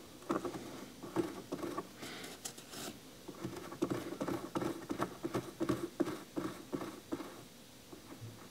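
Light, irregular clicks and taps of small parts being handled: a square carbon-fibre rod being worked onto an epoxy-coated threaded linkage rod, busiest in the middle stretch.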